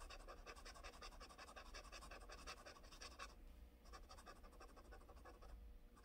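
Soft extra-fine fountain pen nib scratching faintly on paper in rapid back-and-forth strokes, scribbling an ink swatch, with brief pauses about three and a half seconds in and near the end.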